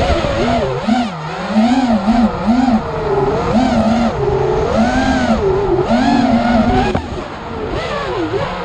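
Racing quadcopter's brushless motors and propellers whining, the pitch rising and falling constantly with throttle, dipping briefly about seven seconds in.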